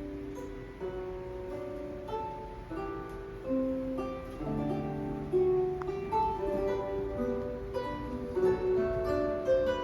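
Instrumental music led by a plucked guitar, several notes overlapping and ringing on, played back through a pair of stereo loudspeakers and recorded in the room.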